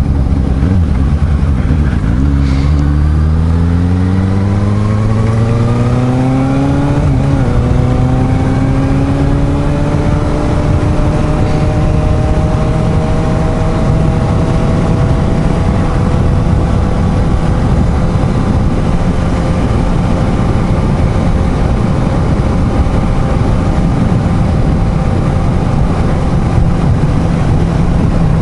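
Suzuki GSR750 inline-four motorcycle engine accelerating, its note rising for about five seconds, breaking briefly about seven seconds in as it shifts up, then climbing slowly to a steady cruise. Heavy wind noise on the microphone throughout.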